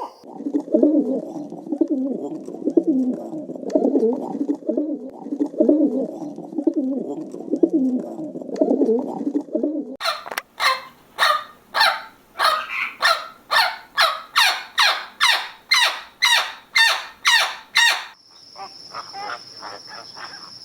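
Pigeons cooing, many low, wavering calls overlapping. About ten seconds in they cut to a loud animal call repeated about twice a second for some eight seconds. Near the end comes a steady high-pitched buzz with faint ticking.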